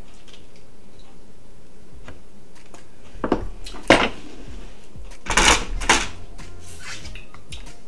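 Rock crab shells being worked over and knocked against ceramic bowls: a few short clicks and clatters, the sharpest about four seconds in, then a cluster around five and a half seconds.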